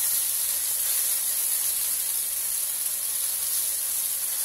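Kale, chicken and vegetables sizzling in a frying pan: a steady, even hiss.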